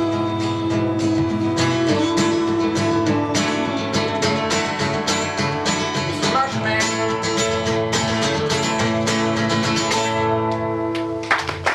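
Acoustic guitar strummed and picked, with chords ringing out as the instrumental close of a song after the last sung line.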